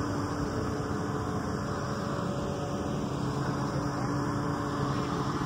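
Steady mechanical hum of airport ground-support equipment running by a parked airliner, with one constant low tone under a noisy drone.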